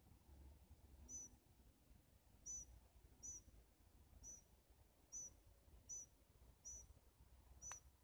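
A small bird repeating a short, high, faint chirp about once a second, over a low background rumble.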